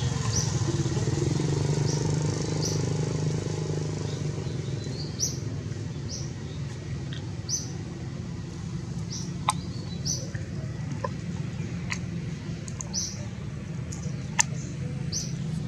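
Outdoor ambience: a steady low rumble underneath, with short high bird chirps repeating every second or two and a couple of sharp clicks.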